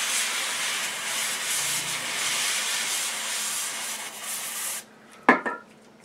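Cool Renewal cryosurgery aerosol can spraying onto the tweezer-tip applicator to chill the tips: a steady hiss for about five seconds that stops abruptly. About half a second later comes a sharp clack, the loudest sound, with a couple of smaller knocks right after it.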